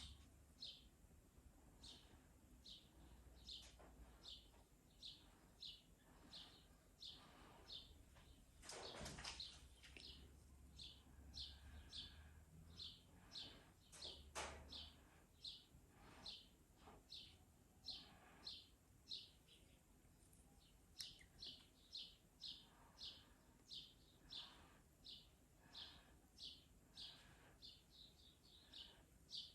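Faint, repeated short high chirps from a bird, about two a second, thinning out for a few seconds in the middle, over near silence. A soft bump about nine seconds in.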